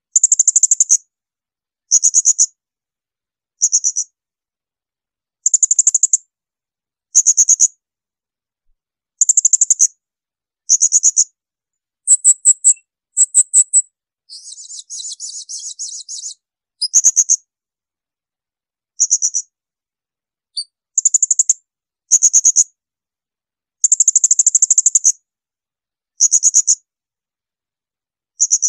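Blue-crowned hanging parrot (serindit) giving shrill, very high-pitched call bursts, each about half a second to a second long, repeated every second or two. A quieter buzzy rattle lasting about two seconds comes about halfway through.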